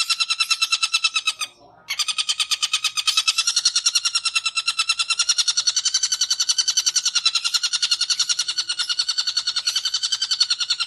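Long-tailed shrike (cendet) chattering in a fast, unbroken run of harsh repeated notes, about eight a second: the continuous 'ngekek' call. It breaks off briefly about a second and a half in.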